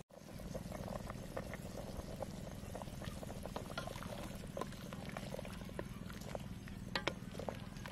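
Soup boiling in a stainless steel stockpot: a steady low bubbling with many small pops, and a couple of sharper clicks near the end.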